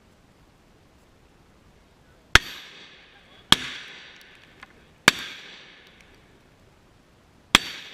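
Four shots from a Rock Island Armory VR80 semi-automatic 12-gauge shotgun, fired at an uneven pace. Each sharp crack is followed by about a second of echo dying away.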